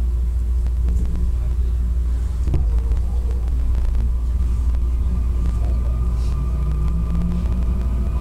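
Odakyu 60000 series MSE Romancecar motor car DeHa 60201 running on the line, heard from inside the car. It has a Toshiba IGBT-VVVF drive and fully enclosed traction motors. There is a steady low rumble with faint steady tones above it, and a single click about two and a half seconds in.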